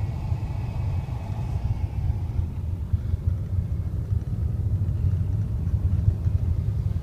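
Steady low rumble of a car's engine and tyres heard from inside the cabin as it climbs a winding mountain road.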